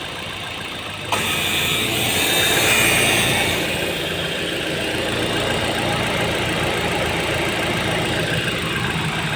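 Suzuki Swift Dzire idling as the air conditioning comes on. About a second in there is a click, then a hiss that swells and settles to a steady level over the engine hum, with a faint tone sliding down in pitch. This is the strange AC-on sound that the owner likens to electronics and is unsure is normal.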